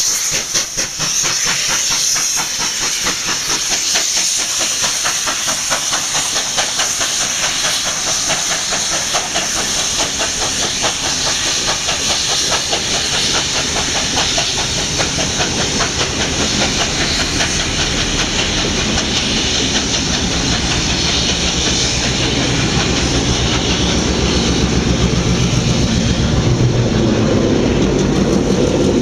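Steam locomotive 3801, a NSW 38 class 4-6-2, passing under heavy steam with a loud hiss and a rapid, regular clatter as its train rolls by. Over the last several seconds a low diesel engine rumble builds as the trailing diesel locomotive approaches.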